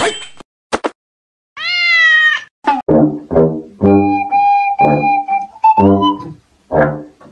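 A cat meows once, a call that rises and then falls, about two seconds in. Then background music with a pulsing beat and held melody notes takes over.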